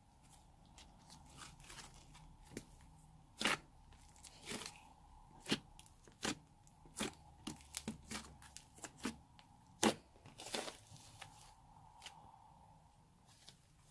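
Fingers pressing and poking thick grey clay slime, giving irregular sticky pops and crackles, with a couple of louder pops about three and ten seconds in.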